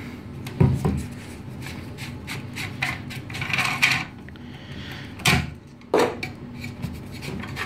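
Handling of a new Onga spa bath pump: the pump is shifted and handled, with rubbing and scraping against it and a few sharp knocks, the loudest about half a second in and twice around five to six seconds in. A low steady hum lies underneath.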